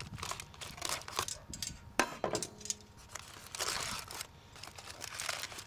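Hot aluminium foil packet, fresh off the grill, being pulled open by hand and with metal tongs, the foil crinkling irregularly, with a sharp click about two seconds in.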